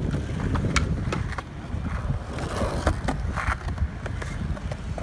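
Skateboards rolling on concrete, a steady low rumble broken by several sharp clacks and knocks of boards and wheels hitting the ground.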